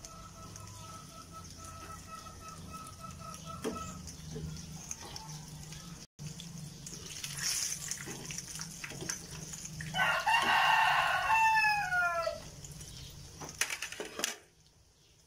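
A rooster crows once, about ten seconds in: a loud call of about two seconds that drops in pitch at the end. A few light clicks come before and after it.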